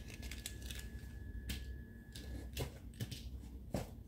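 Plastic toy parts being handled on a table: a few scattered light clicks and knocks over a faint steady hum, the sharpest click near the end.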